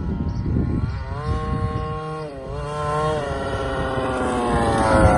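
Zenoah 23 two-stroke gasoline engine of an FG Formula 1 RC car, running through a tuned pipe as the car laps. The engine pitch falls and rises again about two seconds in, the sound grows louder after that, and the pitch dips again near the end.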